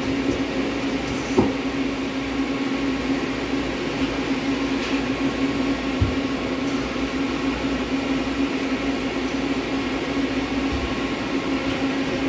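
Mori Seiki SL-25 CNC turning center running through a program cycle: a steady machine hum with one held tone, and a few short low thumps as it works.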